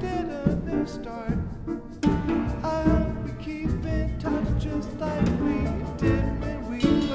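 Small chamber ensemble playing a pop song: Steinway grand piano, bowed cello, double bass and percussion.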